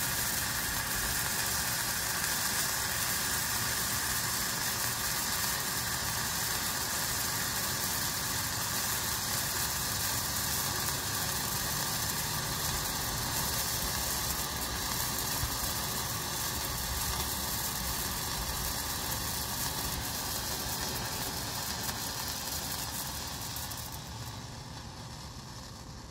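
Solas red hand-held distress flare burning with a steady, loud hiss, fading near the end as the flare burns out.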